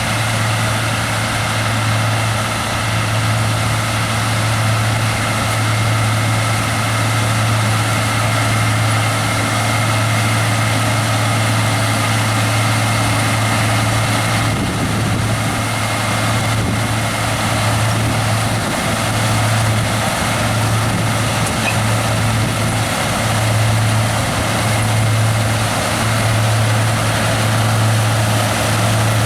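John Deere 6145R tractor's six-cylinder diesel running steadily while it drives a twin-row Top Air direct loader onion harvester, a constant low engine hum with a steady higher machinery whine over it.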